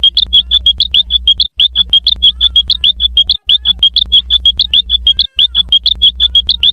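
Cartoon sound effect: a rapid, high-pitched chirping, about seven chirps a second, over a low hum that drops out briefly three times. Very loud, boosted close to full scale.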